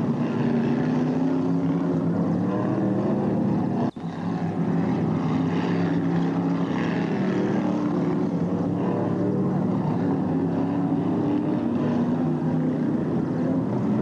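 Several racing stock car engines running hard together, their pitch wavering up and down as the cars lap the track. The sound cuts out for a split second about four seconds in.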